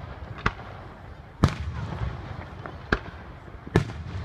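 Aerial firework shells bursting: four sharp bangs at uneven intervals, the second and fourth the loudest, over a steady low background rumble.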